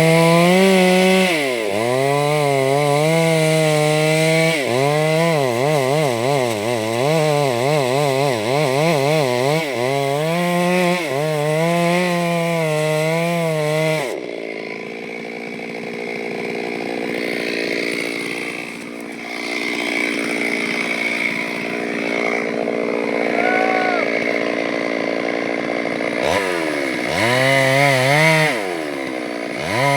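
Chainsaw engine running at high revs, its pitch wavering up and down as the chain bites into wood. It drops to a quieter, rougher sound about halfway through, then revs up again near the end.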